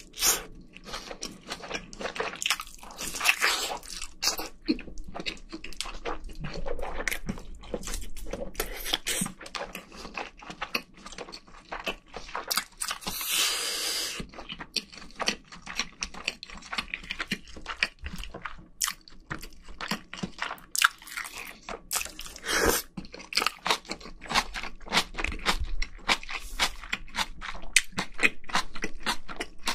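Close-miked chewing: wet mouth smacks and many sharp clicks of a person eating a thick slice of Spam and white rice, with a longer rushing sound lasting about a second near the middle.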